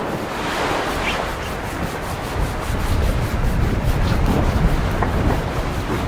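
Close rubbing or sanding noise over a steady rush of wind and sea noise aboard a racing sailboat.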